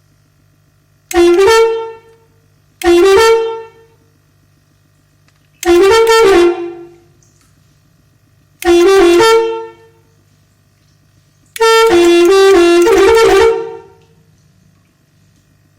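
Three-trumpet telolet horn played by a 20-tune module, sounding five short melodies of a few notes each, the last one longer. A faint steady low hum sits between the melodies.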